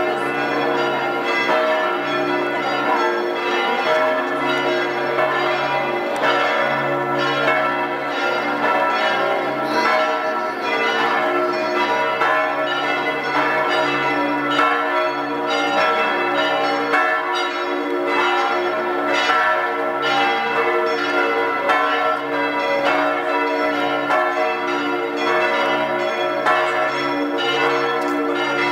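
Church bells ringing in a continuous peal, many strikes in quick succession with the bells' tones overlapping and ringing on.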